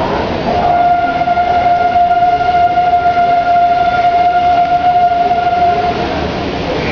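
Steady rain and wind, with a long, steady, horn-like tone held over it from about half a second in until near the end.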